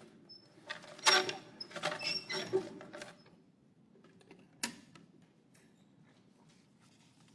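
Wooden lottery drum being handled, with creaking and rattling clicks for the first few seconds and one sharp click about four and a half seconds in.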